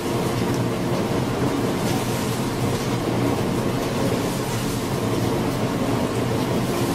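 Steady machinery hum and rumble that holds at an even level, with no distinct knocks or bursts.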